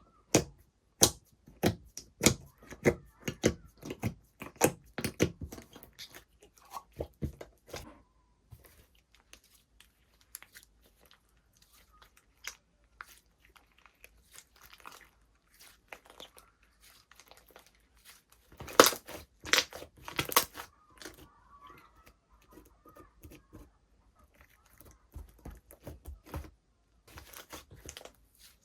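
Slime being played with by hand: rapid sharp pops and crackles as it is stretched and squeezed, thinning out to scattered clicks, then a short burst of loud pops about two-thirds of the way through.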